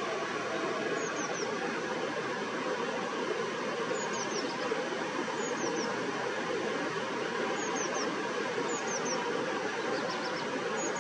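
Black redstart singing: small groups of two or three thin, very high, falling notes every second or two, with a brief scratchy phrase near the end. A steady rushing background noise is louder throughout.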